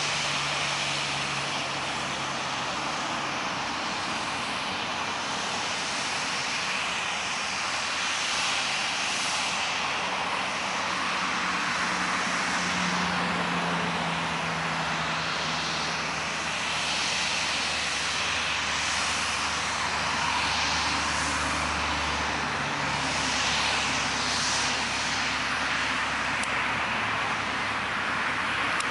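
Steady rushing aircraft engine noise on an airport apron, with a lower engine hum that shifts in pitch and drops off about 22 seconds in.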